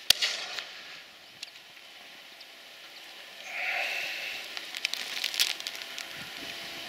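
Shotguns firing at driven partridges: one sharp shot right at the start, a faint report about a second and a half in, and a few more shots around five seconds in. About three and a half seconds in there is a brief call.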